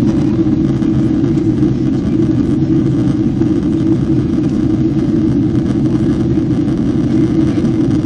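Steady cabin noise of a Boeing 767-300ER in descent: a constant low rumble of engines and airflow heard from a window seat over the wing.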